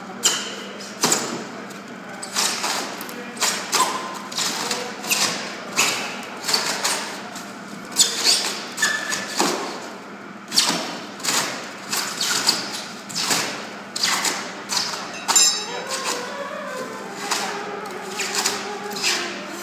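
Hammers driving chisels into a large foam block, two people hacking chunks out of it: a steady run of sharp, irregular blows, about one to two a second.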